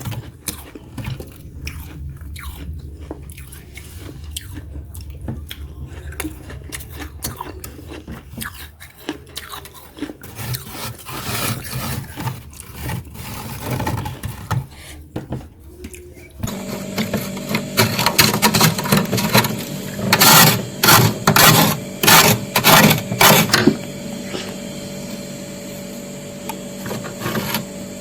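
Close-up crunching of freezer frost or ice being bitten and chewed. About two-thirds of the way through, this gives way to a steady hum with quick, loud, repeated scraping strokes, typical of frost being scraped from a freezer's walls.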